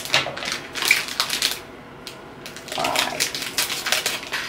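Plastic wrapping of a blind-box toy figure being pulled open and crinkled by hand, in spurts with a short lull about halfway through.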